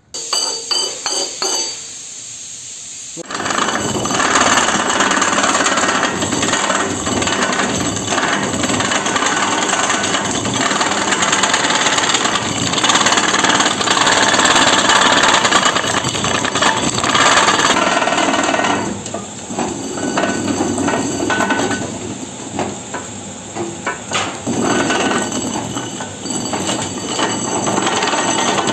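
Tyre buffing machine's rotating cone rasp grinding the old tread off a spinning tractor tyre: a loud, rough, rasping grind that rises and falls in strength. It starts about three seconds in, after a few clicks and a short quieter hum of the machine.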